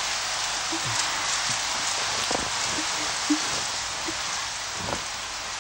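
Steady rain falling, an even hiss, with a brief tap about three seconds in.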